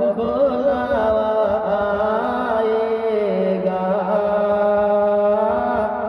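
A man singing a naat into a microphone: a long wordless vocal line held on sustained notes with wavering ornaments.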